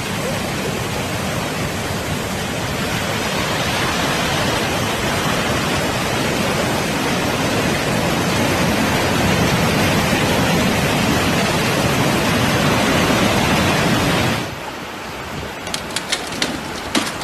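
Loud, steady rushing of storm water, heavy rain and flood noise with no distinct events. It cuts off suddenly about 14 seconds in, giving way to a quieter background with a few sharp ticks near the end.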